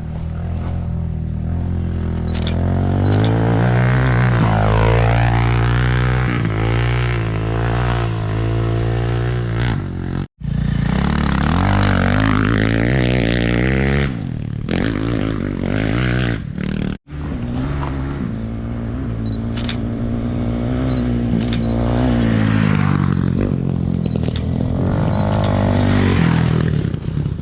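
Engines of off-road racing motorcycles and ATVs running on a desert course, revving up and down as they pass, with several engines overlapping. The sound cuts out abruptly twice, about ten and seventeen seconds in.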